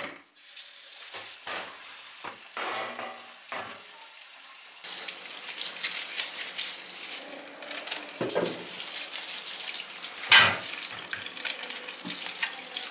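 Kitchen tap running into a sink while aubergines are washed by hand in a plastic bowl, water splashing over them. The steady rush of water begins about five seconds in, with a few sharp knocks as the aubergines are handled.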